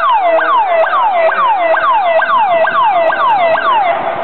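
Emergency vehicle siren sounding a fast cycle of falling tones, each sweeping from high to low about two and a half times a second. It stops just before the end.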